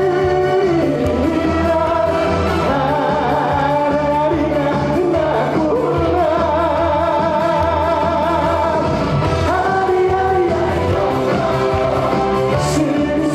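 A singer sings a Korean pop song live over a band backing track, holding long notes with vibrato over a steady bass beat.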